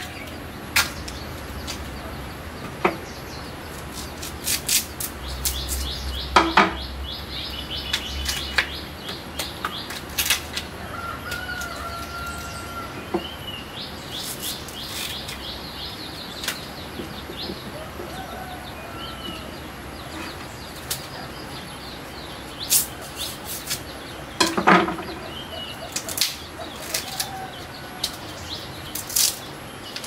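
Fresh bamboo shoots being peeled by hand and trimmed with a large knife: irregular sharp cracks, snaps and rustles of the stiff husk sheaths tearing and being cut, two of them louder than the rest. Small birds chirp now and then in the background.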